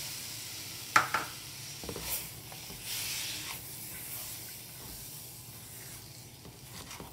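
Silicone spatula stirring and scraping a crumbly semolina mixture around a stainless steel pan, in uneven swishing strokes, with two sharp knocks of the spatula about a second in.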